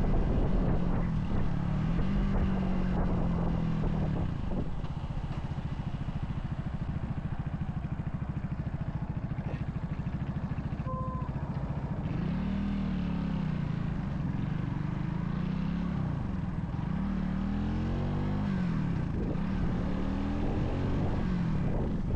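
Vitacci XMT 250 motorcycle engine heard from the saddle: it slows with the revs falling over the first few seconds, then idles steadily for several seconds as the bike comes nearly to a stop. From about twelve seconds in it pulls away, the revs rising and dropping again with each upshift. A brief beep sounds about eleven seconds in.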